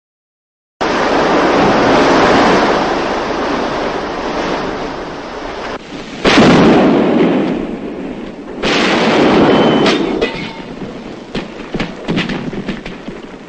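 Artillery shells exploding: three loud blasts, each rumbling away over a few seconds, then a scatter of smaller sharp cracks near the end.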